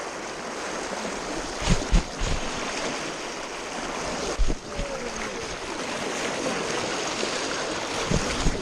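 Fast, shallow river current rushing and splashing over rocks, a steady wash of water noise. A few dull thumps cut through it: two a little under 2 s in, one about 4.5 s in, and two near the end.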